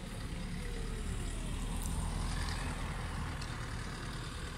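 Low rumble of a motor vehicle passing on the street, swelling and then fading.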